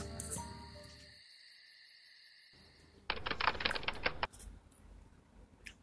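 Background music fading out, then after a short silence a quick run of typewriter key clicks lasting about a second: a typewriter sound effect for a title being typed onto the screen.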